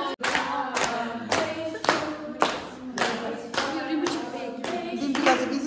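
A group of people clapping in time, about two claps a second, while singing together.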